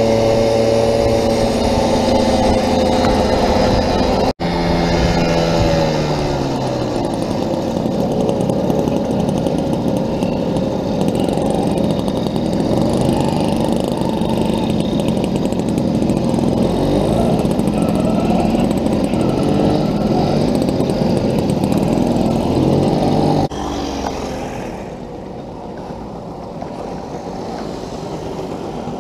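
The single-cylinder 50cc two-stroke engine of a 1985 Puch Maxi moped running under the rider, its pitch falling as it slows a few seconds in, then a rough steady run. Near the end the sound drops to a quieter scene of several two-stroke mopeds riding past.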